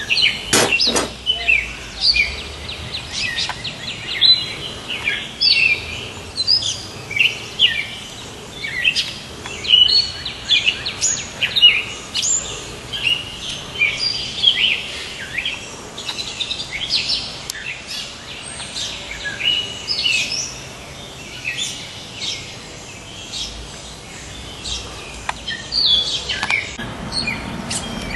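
Songbirds chirping outdoors: many short, quick calls, several overlapping, repeating all the way through.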